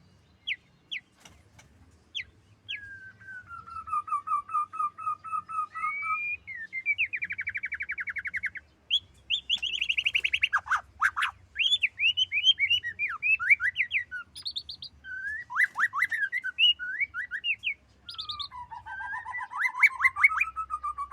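Female murai batu (white-rumped shama) singing a varied song: rapid trills, sliding whistles and sharp tick notes in short phrases with brief pauses between them.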